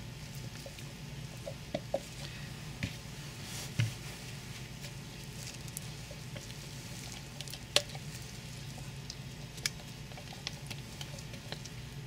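Light clicks, taps and wet squishing as cold process soap batter is poured and spooned into a mold, with a few sharper ticks of utensils against containers, over a low steady hum.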